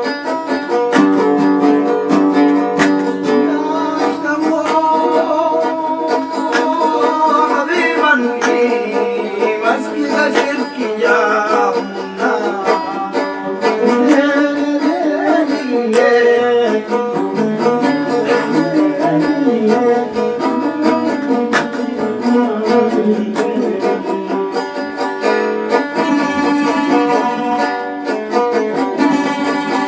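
Oud and tanbour, a Nubian lyre, plucked together in a Nubian song.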